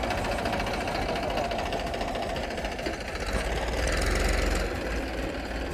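New Holland 3030 tractor's three-cylinder diesel engine running steadily with a diesel knock. It swells louder for about a second, around three and a half seconds in.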